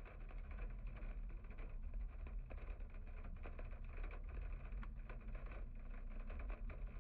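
Low, steady rumble of a car at low speed heard from inside the cabin, with many faint ticks and taps over it.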